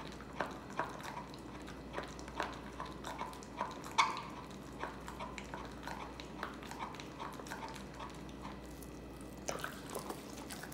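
An American bully chewing and licking at the skin of a large raw turkey leg: irregular wet smacks and clicks of jaws and tongue on the meat. The loudest smack comes about four seconds in.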